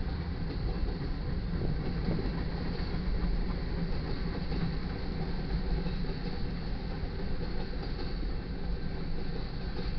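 Covered hopper cars of a grain train rolling past close by: a steady low rumble and rattle of steel wheels on the rails.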